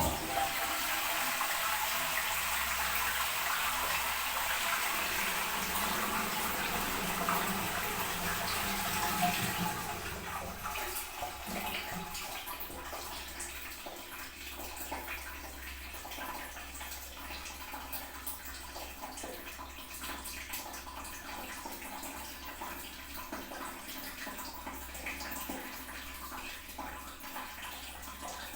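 Toilet flushing: a sudden loud rush of water for about ten seconds, then the tank refilling with quieter, steady running water.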